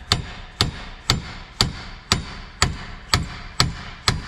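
Hammer striking the steel steering knuckle and hub of a 2020 Nissan Rogue, steady blows about two a second, each with a short metallic ring. The hammering is driving out a front wheel hub bearing that is seized tight in the knuckle.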